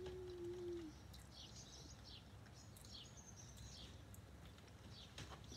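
Faint eating sounds: a short hummed "mmm" in the first second, then a few soft, high-pitched slurps as noodles are sucked in with chopsticks.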